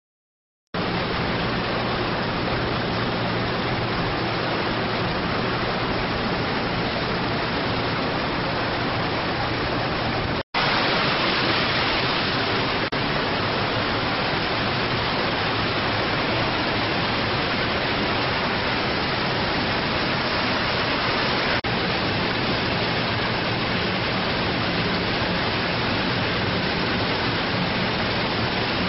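Steady rushing water with a low hum beneath it, from a floating vacuum micro-bubble generator running and churning the water of a tank. The sound breaks off for an instant about ten seconds in.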